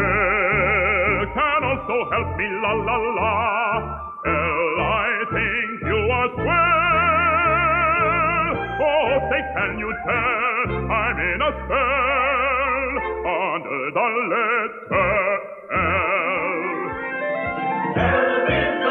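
A man singing an operatic-style song with strong vibrato on long held notes, over instrumental accompaniment.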